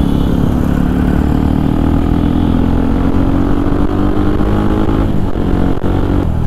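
Motorcycle engine with a modified exhaust (the stock silencer's bend pipe cut) accelerating, its note rising slowly and steadily, then dropping abruptly about five seconds in.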